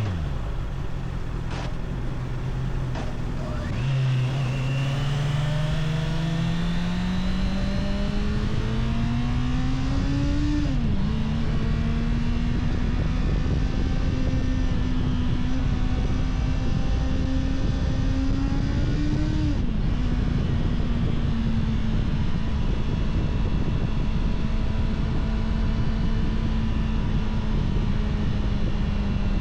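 Honda CBR650R's inline-four engine on its stock exhaust, accelerating with the revs climbing for several seconds. Its pitch drops sharply at an upshift about ten seconds in and again near twenty seconds, then it holds a steady cruise. Wind rush runs underneath throughout.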